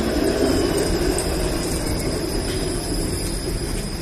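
Toronto streetcar (Flexity Outlook low-floor tram) at the stop and starting off, its running gear giving a steady rumble with a thin steady high whine over it.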